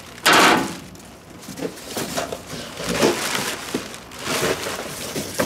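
Cardboard box and packing material rustling and crackling as parts are unpacked: a loud rustle a moment in, then irregular crinkling and handling noise.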